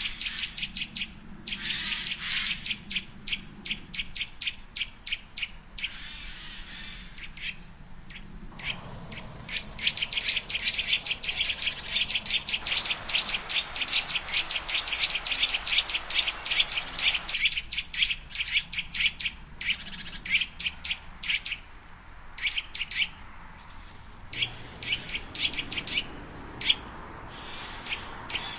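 Songbirds chirping in fast runs of short, high repeated notes, loudest in the middle stretch. The background changes abruptly a few times, as separate recordings are spliced one after another.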